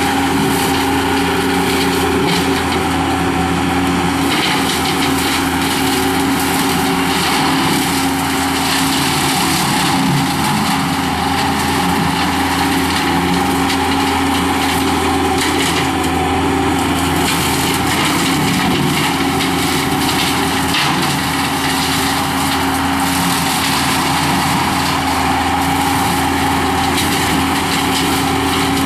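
Skid steer loader running steadily at working throttle, driving a CID Xtreme 60-inch hydraulic brush cutter, with a constant crackle of brush being cut.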